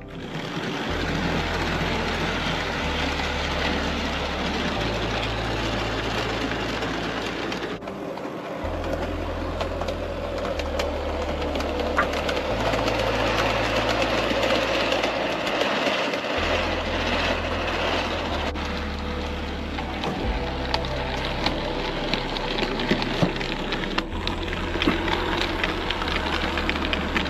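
Model railway train, a diesel locomotive model hauling a rake of milk tank wagons, running along the track with a steady rolling rumble of motor and wheels. Near the end it passes close, with rapid clicking from the wheels over the rail joints.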